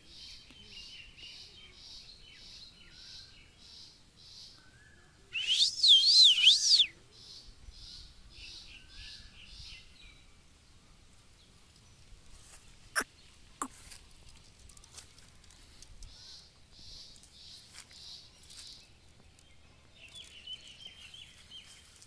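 A rose-ringed (Indian ringneck) parakeet gives one loud, harsh screech with a zigzagging pitch, lasting about a second and a half, about five seconds in. Under it runs a steady series of evenly spaced high chirps, about three a second. Two sharp clicks come near the middle.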